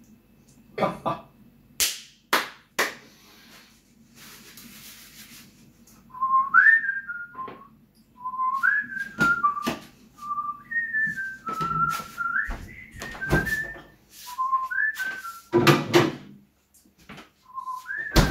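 A man whistling a tune, one clear note at a time with slides between notes, starting about six seconds in. Before it come a few sharp clinks of a spoon in a steel pot, and a few more knocks sound during the whistling.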